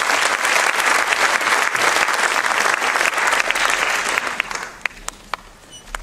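Audience applauding: dense, steady clapping that fades out after about four seconds, leaving a few scattered last claps.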